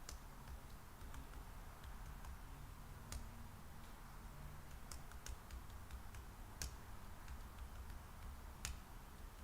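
Faint, scattered clicks at a computer, a sharp click every second or so, over a low steady hum.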